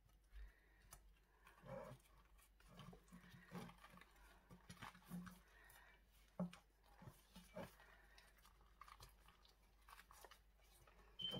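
Faint rustling and soft irregular taps of a flour tortilla being folded and rolled around the filling by hand on a plate, near silence otherwise.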